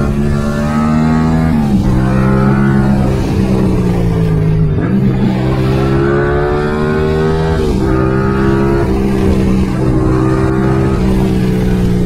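Yamaha MT-07's 689 cc parallel-twin engine running through a full Mivv aftermarket exhaust while riding. The pitch rises and falls with the throttle and dips sharply three times, near 2, 5 and 8 seconds in.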